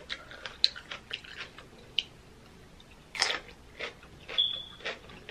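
Close-miked chewing of a raw red pepper: wet mouth clicks and smacks with small crunches, and a few louder crunching bites a little past three and four seconds in.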